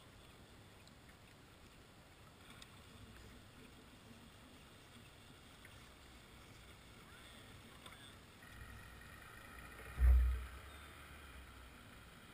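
Faint, steady water and hull noise around a fishing kayak drifting on calm water, with a few light ticks. A single short, deep thump about ten seconds in is the loudest sound.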